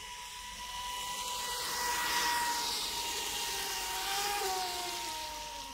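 Electric RC speedboat at full throttle, a high motor whine over the hiss of its spray. It grows louder for the first couple of seconds, then the pitch falls as the boat passes and fades near the end.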